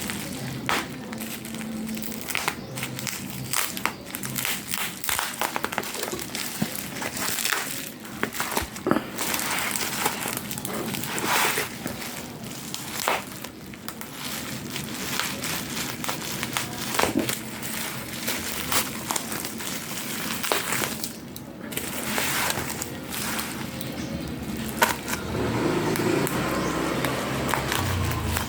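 Plastic packaging and bubble wrap crinkling and rustling as it is handled and unwrapped, with many irregular crackles and small handling clicks.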